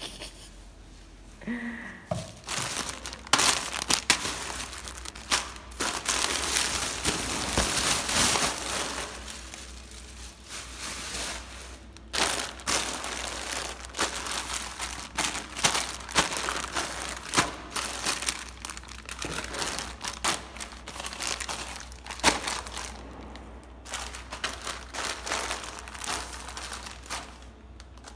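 Irregular crinkling and rustling, with scattered short knocks and clicks.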